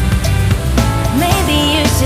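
Background music with a steady beat and bass under a wavering melody line.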